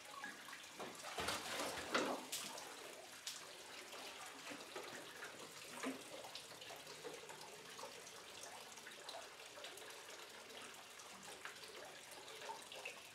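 Faint water running from a tap into a metal bucket in a filled concrete trough, a steady splashing trickle, with a few louder splashes in the water about one to two seconds in.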